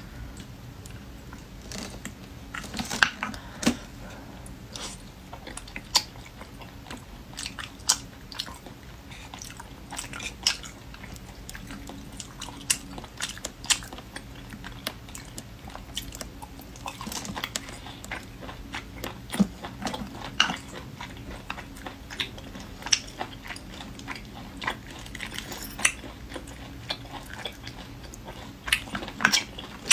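Close-miked eating of spicy river snails: chewing, with frequent short, sharp clicks and smacks at irregular intervals.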